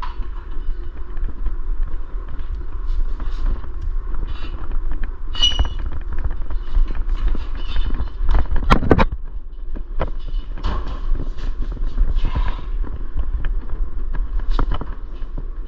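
Scattered metal clicks, knocks and creaks of mini bike parts and hardware being handled while a wheel is fitted to the fork, with one brief metallic ring about five seconds in and a louder clank near the middle, over a steady low rumble.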